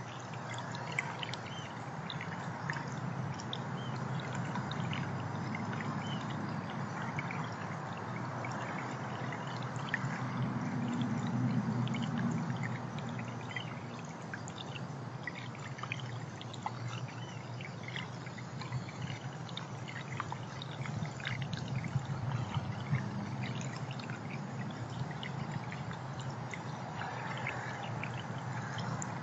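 Water trickling and pouring steadily, with many faint high ticks scattered over it.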